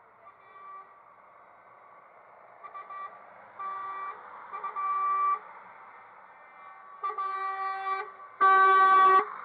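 Truck horns honking in a series of steady-pitched blasts, starting about two and a half seconds in: several short toots, then a longer blast, and the loudest blast near the end.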